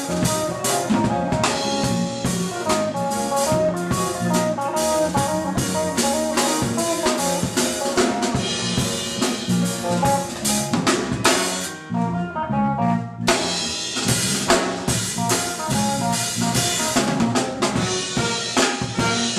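Live band playing a reggae song: drum kit with rimshots and bass drum over bass, guitar, piano and brass (trumpet and bass trombone). The band drops back briefly about twelve seconds in, then comes back in.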